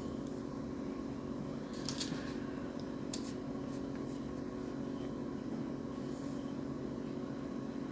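A steady mechanical hum, with a couple of faint clicks about two and three seconds in.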